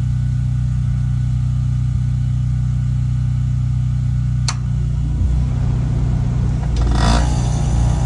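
A Craftsman 6300-watt portable generator running with a steady hum. About four and a half seconds in comes a sharp click as the air conditioner kicks on, then the generator's hum changes and a louder rush of noise comes near the end as the 3-ton compressor starts through its soft start and loads the generator.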